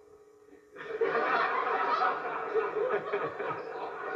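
A studio audience breaks into laughter about a second in and keeps laughing, after a short, nearly silent pause with a faint hum.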